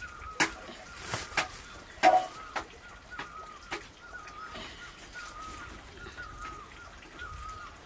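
A bird calling over and over in short, even chirps, about two a second, with a few sharp knocks in the first four seconds.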